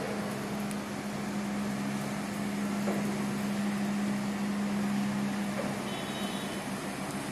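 Steady drone of a running engine or machine on a construction site, with one humming tone that fades about five seconds in.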